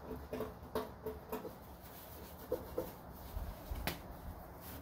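Faint rubbing and light scuffs of an oiled paper towel being worked over the inside of a grill lid, scrubbing off double-sided-tape residue. There is one sharp click about four seconds in.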